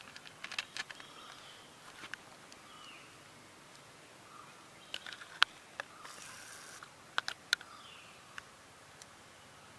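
Scattered small sharp clicks and taps of metal spinning-reel parts being handled as a new ball bearing is set into the reel, the loudest about halfway through. Faint bird chirps behind.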